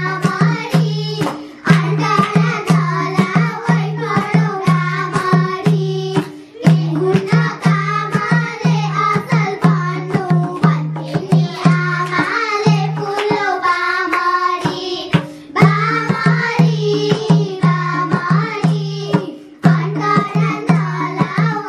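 Girls singing a Nepali folk dohori song in a bhaka tune into microphones, over a regular percussion beat and a steady low held note. The singing and the held note break off briefly between phrases about four times.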